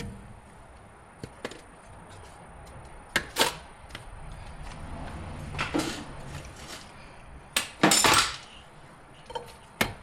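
Scattered clinks and knocks of metal tools and parts being handled. The loudest is a short clatter about eight seconds in.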